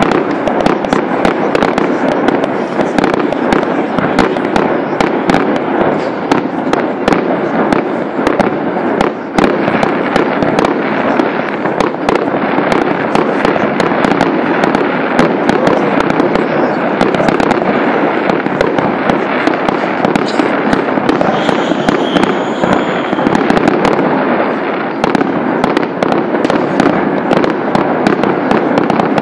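Fireworks display: a dense, unbroken barrage of shell bursts, bangs and crackling.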